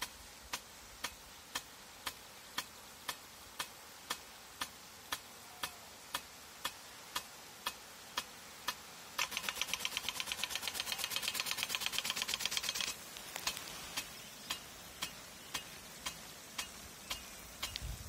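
Agricultural rain gun (large impact sprinkler) running, its flap arm clicking against the water jet about twice a second over the hiss of spray. From about 9 s to 13 s a louder, fast rattle of about ten ticks a second replaces the clicks, typical of the gun's quick return swing, and then the slow clicking resumes.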